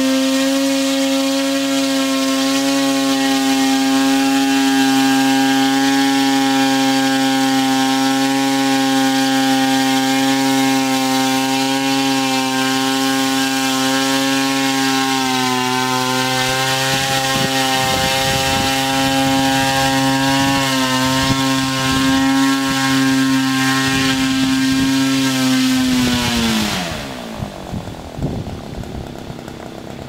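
Multirotor drone's propellers and motors running with a steady, loud buzzing hum, then spinning down near the end, the pitch falling away sharply as the rotors slow.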